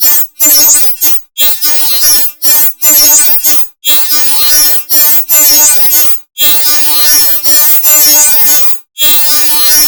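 The 'drunk squirrel laughing' meme sound effect, layered over itself so many times that the laugh has merged into a loud, steady-pitched buzz. The buzz is cut by short silent gaps at irregular intervals, about every one to two and a half seconds.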